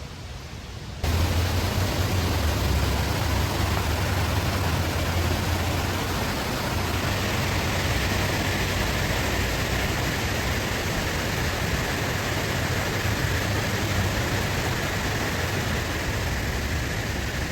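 Rushing water of a rain-swollen creek and waterfall, a steady full rush that jumps louder about a second in.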